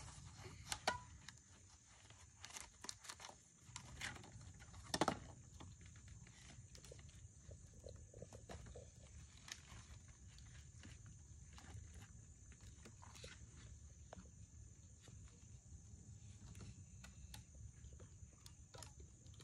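Faint, scattered clicks and taps of packaging and parts being handled on a new children's bicycle, a few louder ones in the first few seconds.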